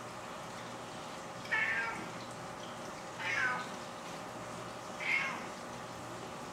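Three short mewing bleats, roughly two seconds apart, from a white-tailed deer fawn as it nurses, over a steady background hiss.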